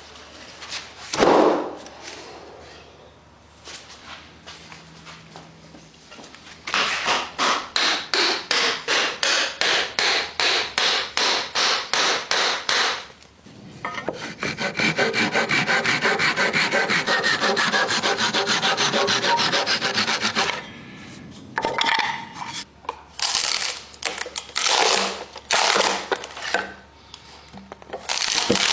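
A hand tool working wood. First comes a run of even back-and-forth strokes, about three a second, for several seconds. Then a few seconds of faster, continuous rasping, and near the end scattered knocks and short scrapes.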